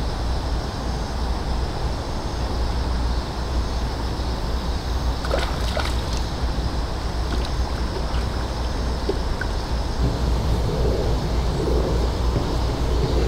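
Wind blowing over the microphone: a steady low rumble with a hiss above it.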